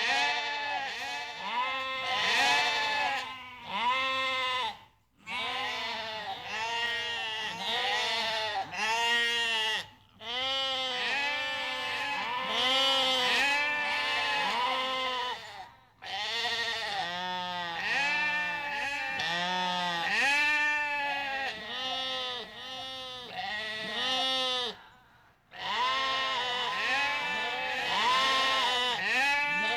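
A group of goats bleating, many overlapping arched calls one after another, with a few short breaks in between.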